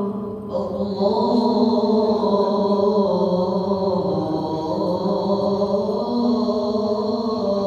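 Men's voices chanting an Arabic devotional recitation in long held notes, a new phrase starting about half a second in.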